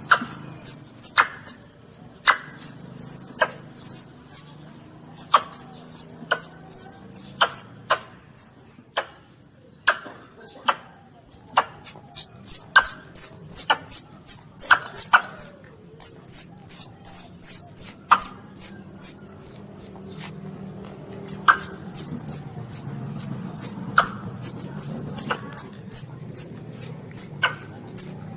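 Calls of a young Asian palm civet (luwak): a rapid series of short, very high-pitched squeaks, about three a second, broken by brief pauses, some with a sharp click.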